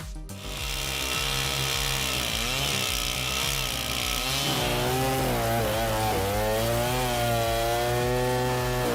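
Chainsaw cutting through wood: the engine runs at high speed under load, its pitch dipping and rising as the chain bites. It starts about half a second in, right after a cut from music.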